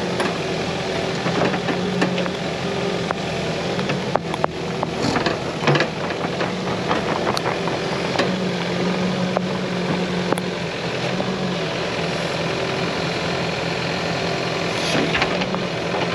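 Caterpillar 308E mini excavator's diesel engine running steadily at a constant pitch, with scattered knocks and clatter, thickest in the middle.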